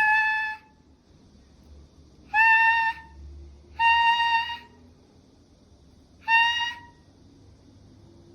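Dragon Li cat meowing: four high, drawn-out meows at a similar pitch, irregularly spaced, the first already sounding at the start and the others about two, four and six seconds in.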